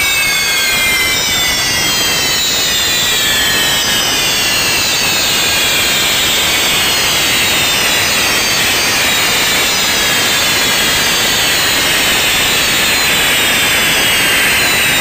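Maltese ground fireworks (nar tal-art), spinning pyrotechnic wheels and spark fountains, burning with a loud, steady rushing hiss. Several whistling tones glide slowly down and back up in pitch above it.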